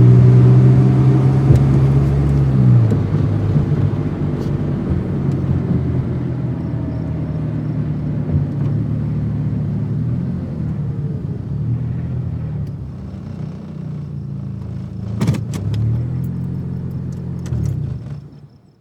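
Car engine running, its note shifting up and down several times as it is revved and driven. A quick cluster of sharp clicks comes about fifteen seconds in, and the sound dies away just before the end.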